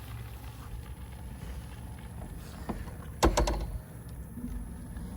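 UBCO electric motorbike riding across the farm: a steady low rumble of the ride, with one loud knock about three seconds in.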